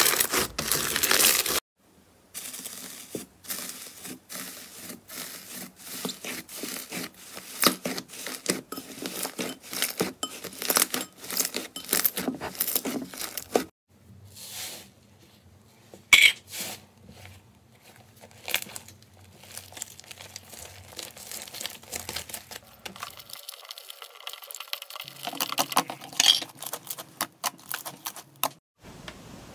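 Hands squeezing and kneading crunchy slime: a pink fluffy slime, then a mint-green iceberg slime with a dry crust, giving off dense crackling and crunching with a few short quiet pauses.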